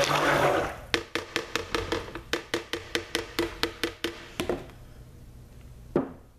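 Stick blender cuts off about half a second in. A fast run of light hollow knocks follows, about five a second for three and a half seconds: the plastic lye-water pitcher tapped against the crock pot to shake out the last drops. One louder knock comes near the end.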